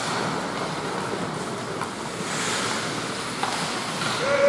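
Ice hockey rink during play: skate blades scraping and hissing on the ice over a steady wash of arena noise, with a brighter hiss about halfway through.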